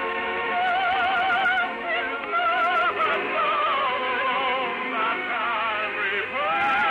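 Operatic singing with wide vibrato and long held notes over musical accompaniment, with the narrow, dull sound of an old radio broadcast recording.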